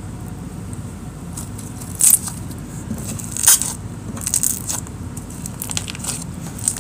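Jelly cube slime (glue slime packed with magic-eraser sponge cubes) being squeezed and pulled apart by hand, giving sticky crackling and popping squelches. The loudest come about two seconds in and at three and a half seconds, with smaller crackles after.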